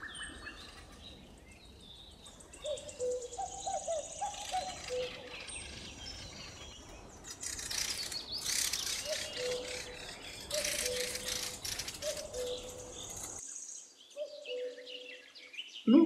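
Fieldfares mobbing a crow, giving harsh, rasping alarm chatter in loud spells through the middle, with shorter, lower bird calls repeated between them.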